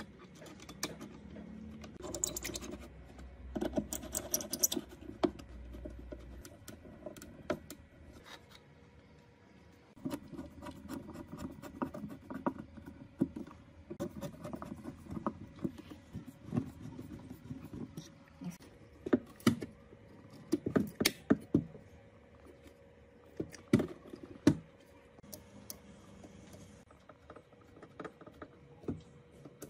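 Screws being driven with a hand screwdriver into a particleboard speaker cabinet while metal plates and parts are fitted: scraping and scratching broken by irregular sharp clicks and small knocks, the loudest clicks coming in a cluster about two-thirds of the way through.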